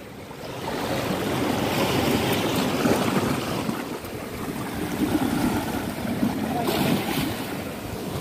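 Sea surf washing and breaking over a rocky shoreline, swelling and easing in waves, with wind buffeting the microphone.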